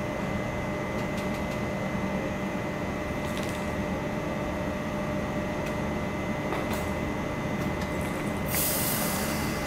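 Taiwan Railway E200-class electric locomotive standing at the platform with its equipment running: a steady hum with a high steady whine over it. A few faint clicks, and a short burst of hissing near the end.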